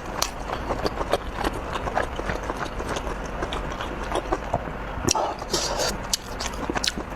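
A person chewing red-braised pork belly, with wet mouth clicks and smacks coming at an irregular pace.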